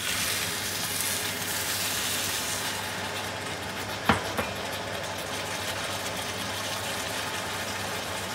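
Hot water poured into a hot wok of stir-fried cabbage, sizzling loudly for the first few seconds and then settling into a quieter steady hiss, over a low steady hum. A sharp clack comes about four seconds in.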